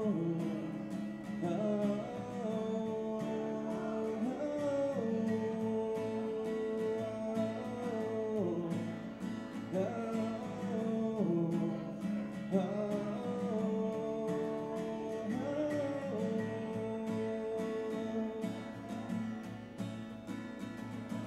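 Acoustic guitar played in a steady rhythm while a man sings long, wordless sliding notes. The singing drops away near the end and the guitar carries on alone.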